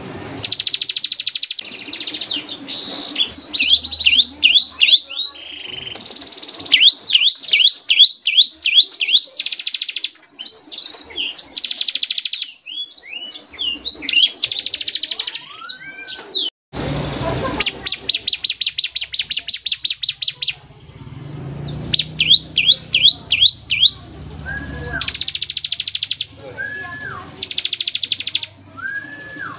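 Ciblek (bar-winged prinia) singing: loud, high, fast trills and rapid runs of short downward-sweeping notes, the rattling 'ngebren' song with rapid-fire 'tembakan' bursts. The song breaks off abruptly a little past halfway, then resumes with more trills.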